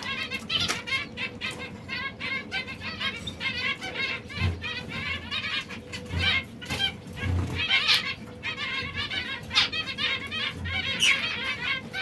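Several domestic canaries singing and twittering together in rapid, overlapping trills, with a few soft low thuds here and there.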